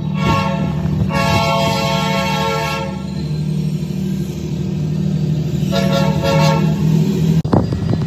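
Diesel freight locomotive's multi-chime air horn sounding two blasts, one long and then a shorter one, over the steady low running of its diesel engine. The recording is played back sped up. The sound breaks off abruptly near the end at an edit.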